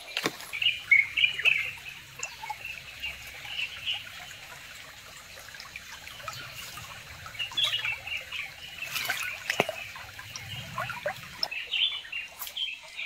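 Small birds chirping in scattered bursts over trickling creek water, with a few sharp clicks.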